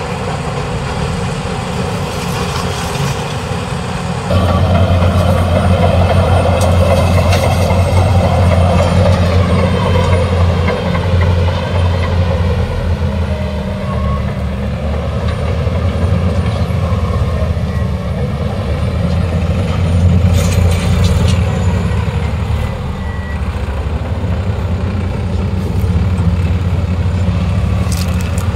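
Diesel engines of a Case IH sugarcane harvester and a New Holland 3630 tractor towing an infield trailer, running steadily under load with a low hum. The sound jumps abruptly louder about four seconds in, and a few brief clicks come through later on.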